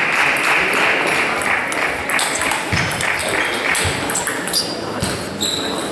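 Table tennis rally: the ball clicking off bats and table in quick, irregular strikes, with more ball clicks from neighbouring tables in the sports hall.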